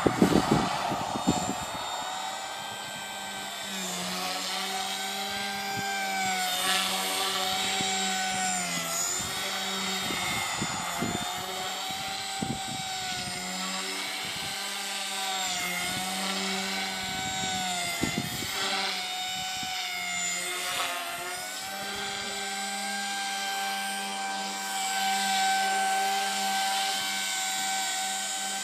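Align T-Rex 150 electric micro RC helicopter flying 3D manoeuvres: a high motor-and-rotor whine whose pitch repeatedly sags and recovers as the loops and rolls load the rotor. About two-thirds of the way in it settles to a steady pitch. A few knocks and rumble come in the first second.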